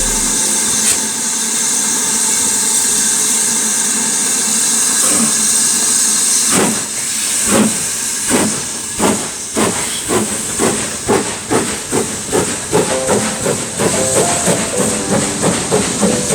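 Steam locomotive hissing steam, then pulling away: exhaust chuffs begin about six seconds in and quicken steadily.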